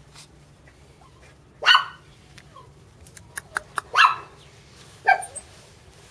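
Mame shiba puppy giving three short, high yaps a second or so apart, with a few faint clicks between them.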